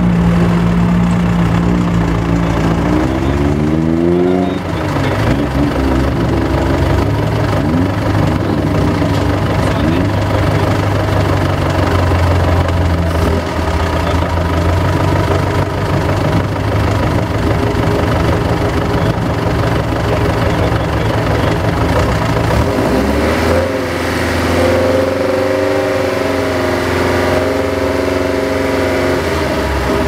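Vintage sports car's engine running for a static noise test: its revs rise about four seconds in and are held steady for most of the time, then climb and waver again near the end.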